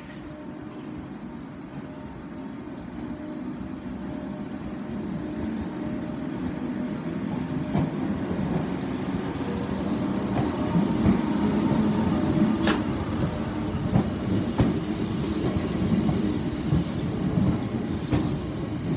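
Class 313 electric multiple unit pulling away from the platform and passing close by, its motor hum growing steadily louder as it gathers speed, with a few sharp clacks of wheels over rail joints in the second half.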